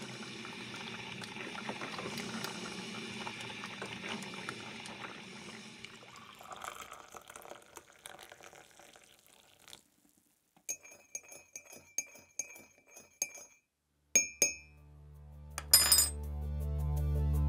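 Liquid pouring into a mug, fading out, followed by a run of light ringing clinks. Near the end, music starts with a low note that swells louder.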